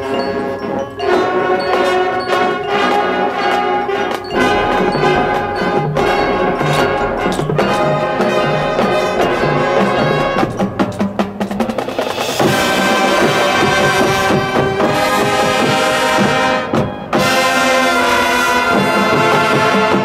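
Marching band playing: brass over percussion, with a run of sharp percussion hits around the middle, then the full band playing loud held chords that break off briefly near the end.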